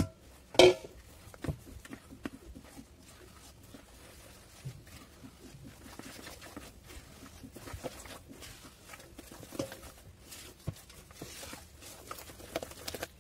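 Spoon stirring cocoa powder into a thick butter, sugar and egg mix in a bowl: soft scraping with many small taps. There is one sharp knock of a utensil against the bowl about half a second in.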